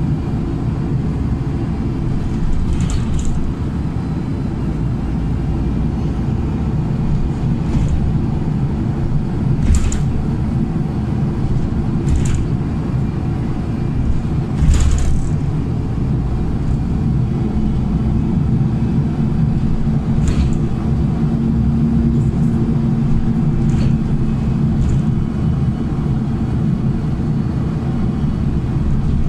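Cabin noise of a moving LiAZ 5292.67 city bus with a YaMZ-53624-40 engine: steady low engine and road rumble, broken by a handful of short sharp rattles or clicks. A steady hum joins in past the middle for several seconds.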